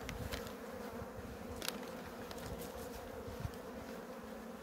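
A honeybee colony humming steadily in its open hive, with one short click about a second and a half in. The colony is a bit restless.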